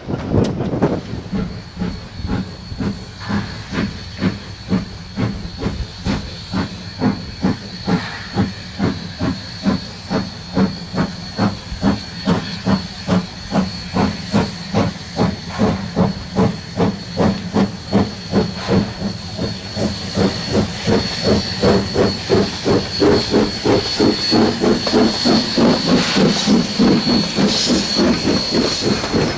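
Steam locomotive A 428 working a train, with regular chuffs from its exhaust that quicken and grow louder as it picks up speed and draws near. A steady high steam hiss runs over the beats.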